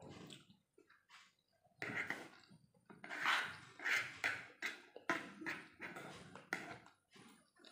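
Close-up eating sounds: chewing a mouthful of fried rice, then a metal spoon scraping and scooping rice on a plastic plate, in short irregular clicks and scrapes.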